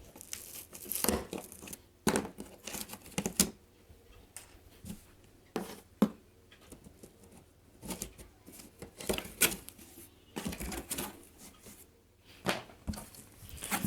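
Packaging being opened and handled: irregular sharp clicks and knocks mixed with rustling, crinkling and tearing of cardboard and plastic wrap, the sharpest click about six seconds in.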